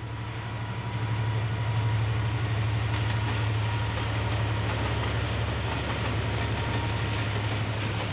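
Diesel locomotive of a passing KiwiRail train, its engine a steady low drone with a fast throb that grows louder about a second in.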